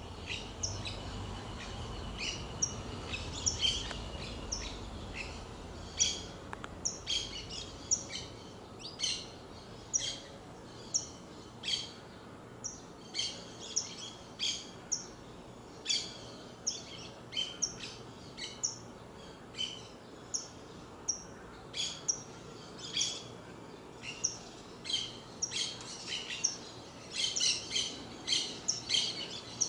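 Saffron finch giving short, high chirps, many sliding quickly downward, repeated about once or twice a second in loose series that grow denser near the end.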